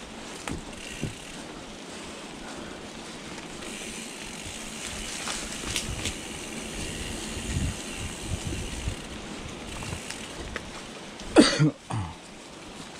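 Mountain bike rolling along a dirt trail: a steady rumble of tyres and rattling over rough ground, with scattered sharp clicks and a loud jolt near the end.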